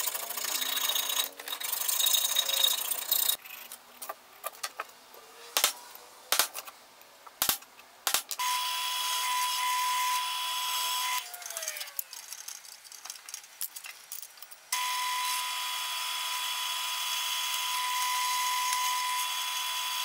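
A round file rasping back and forth through a hole in a steel plate clamped in a vise, for about three seconds. Then clicks and knocks, and a drill press running with a steady whine as it drills into steel, twice, its pitch falling as it slows down between the two runs.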